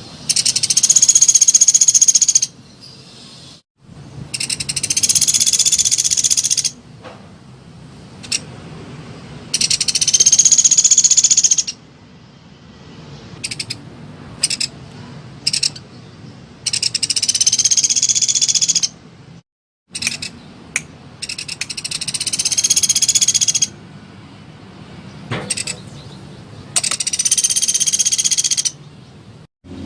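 Recorded songbird call played as a bird lure: a high-pitched phrase about two seconds long with a slight rise in pitch, repeated six times at intervals of four to five seconds, with a few faint clicks in the gaps.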